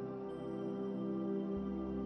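Slow ambient background music of sustained, layered drone tones, with a deeper bass tone coming in about one and a half seconds in.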